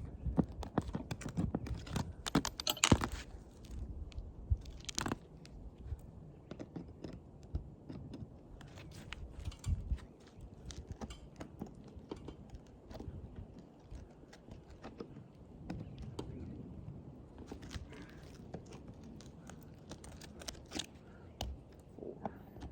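Clicking, scraping and crunching of a metal nail puller prying roofing nails out of worn, degranulated asphalt shingles, busiest and loudest in the first three seconds, then lighter scattered clicks.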